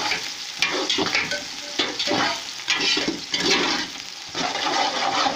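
Sliced onions frying in hot oil in a steel pot, sizzling steadily while a ladle stirs them, its strokes against the pot about twice a second.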